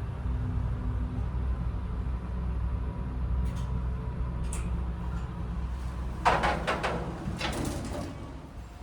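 Hitachi passenger elevator running with a steady low rumble, then its sliding doors opening with a rattling clatter about six seconds in, lasting about two seconds.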